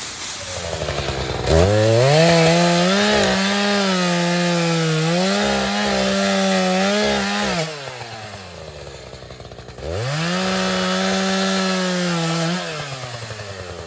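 Chainsaw revved to full throttle and held there while cutting wood, its pitch dipping briefly under load, then dropping back to idle about seven and a half seconds in. It revs up again for a second cut of about three seconds near the end.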